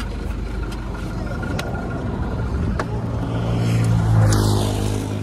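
Van engine idling close by, a steady hum that comes up and grows louder about three seconds in, over a low rumble.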